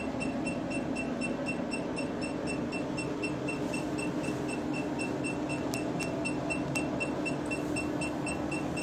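Cosmetic copper laser machine beeping in short, evenly spaced high pips about five times a second as it fires, over its steady low running hum.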